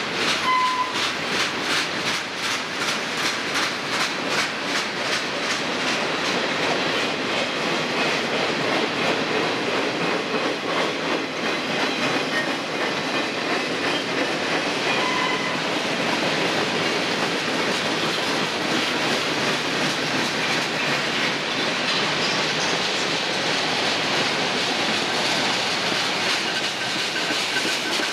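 Freight train cars (boxcars, covered hoppers and tank cars) rolling slowly past with a steady rumble of steel wheels on rail. Wheels click evenly over the rail joints in the first several seconds, with a short, high wheel squeal near the start and another about halfway through.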